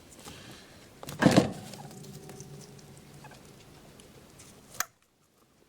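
A guinea pig sneezes once, a short sharp burst about a second in. A sharp click follows near the end.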